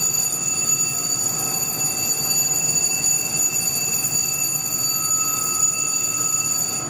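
A boiler-room alarm sounds as one continuous steady electronic tone and cuts off suddenly at the end.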